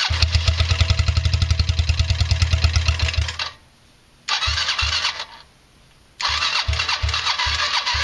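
Electric starter cranking a Yamaha Badger ATV's 80cc single-cylinder engine, freshly rebuilt with lapped valves, in three tries: a fast run of about three seconds, a short one of about a second, then a slower, steadier crank from about six seconds in. The engine does not catch and run.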